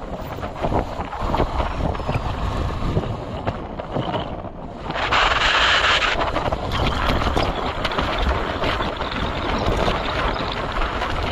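Wind buffeting the microphone over a steady low rumble while travelling, with a louder rush of hiss about five seconds in.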